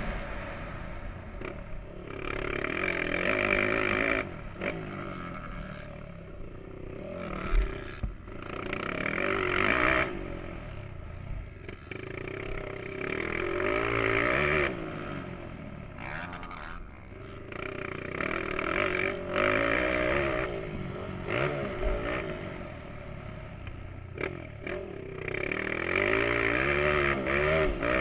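Motocross bike engine under race load, revving up hard and falling off again every few seconds as the rider opens and closes the throttle around the track. A few sharp knocks come through, the loudest about seven and a half seconds in.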